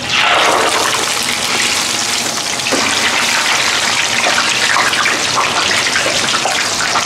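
Chicken karaage pieces deep-frying in a commercial fryer, the oil sizzling and crackling vigorously. The sizzle starts suddenly as the pieces go into the hot oil, then holds steady.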